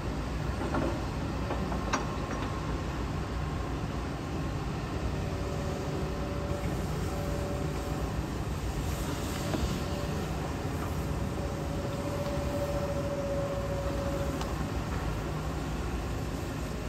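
Hitachi ZAXIS 210K hydraulic excavator's diesel engine running steadily, with a faint whine that comes and goes twice and a few light clicks near the start.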